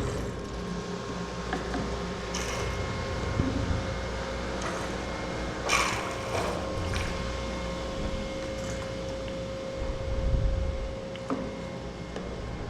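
Mechanical clicking and rattling from something being handled and shaken, with a brief high squeak falling in pitch about six seconds in.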